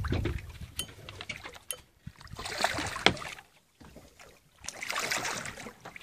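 Water splashing in two bursts, about two and five seconds in, as a hooked shark moves at the surface beside the boat.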